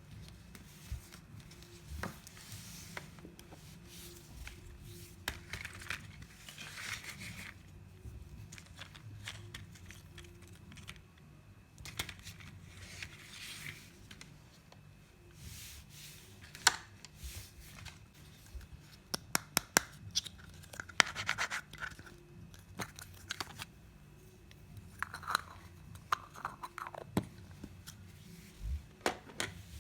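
Toy packaging being handled and opened: plastic and cardboard scratching and scraping in short, irregular swishes, with a cluster of sharp clicks about two-thirds of the way through.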